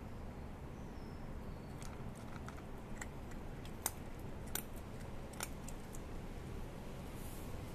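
Cat crunching dry kibble: a series of sharp, separate crunches starting about two seconds in, the sharpest around four seconds in, over a steady low background hum.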